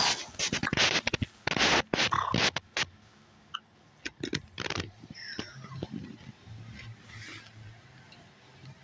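Handling noise from the camera being moved and covered: dense scraping and rubbing with knocks for the first three seconds, then only scattered faint rustles and clicks.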